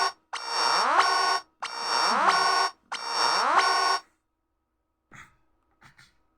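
Nokia X6-00 ringtone played through the phone's speaker: a short electronic phrase with a rising sweep, repeated three times about every 1.3 seconds, that stops about four seconds in. Two faint clicks follow near the end.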